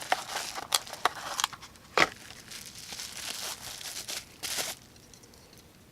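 Crinkling and rustling of bubble-wrap packaging being pulled open and off a folding knife, with a sharp snap about two seconds in. It dies down near the end.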